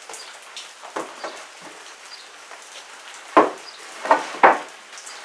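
Objects being handled and set down on a work surface: scattered knocks and clatters, the loudest three in the second half, over a low hiss.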